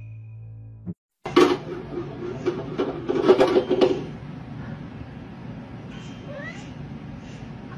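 A snatch of music stops abruptly about a second in. A cat then vocalizes, loudest for the next few seconds and quieter after that, with a short rising cry near the end.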